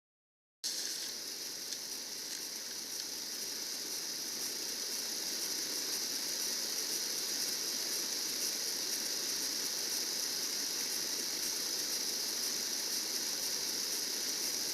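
Steady high-pitched hiss that slowly grows a little louder, with no clear strokes or rhythm.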